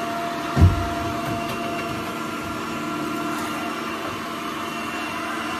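Robot vacuum cleaner running, a steady whirring hum with a few steady whining tones over it, and one low thud about half a second in.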